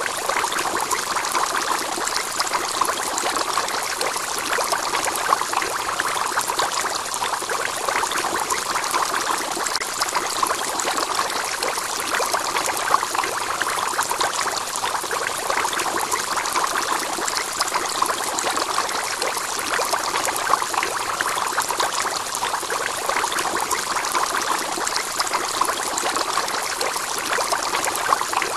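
Aquarium's external filter outflow: a steady, even trickling of water into the tank.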